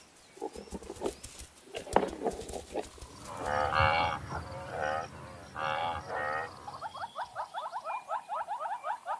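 African buffalo lowing: three wavering, moo-like calls in the middle, the second one short, after a few sharp clicks. Near the end a fast series of short rising chirps, several a second, takes over.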